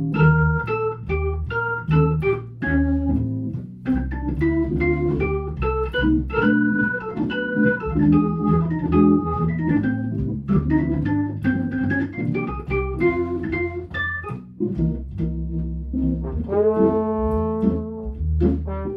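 Hammond organ taking a jazz solo, a quick single-note melody over a walking bass line that steps on each beat. Near the end a trombone comes in with long held notes.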